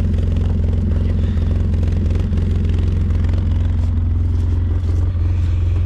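Vehicle engine running with a steady low hum as the vehicle drives along a road.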